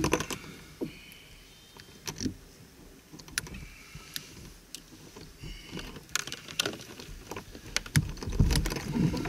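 Scattered knocks and clicks on a plastic fishing kayak while a small shark is handled on deck, with a louder run of low thumps near the end.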